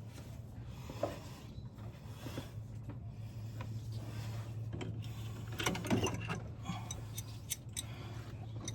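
Scattered light clicks and metallic clinks of hand tools being worked in a cramped spot on the engine, with a busier run of clinks about six seconds in, over a steady low hum.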